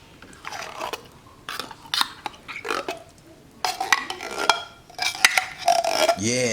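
Metal spoon scraping and stirring thick condensed cream soup out of a can, in a series of short irregular scrapes, with a brief low vocal sound near the end.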